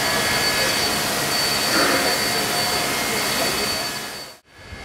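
Steam hissing steadily from C32-class steam locomotive 3265 as it stands at the platform, fading out about four seconds in.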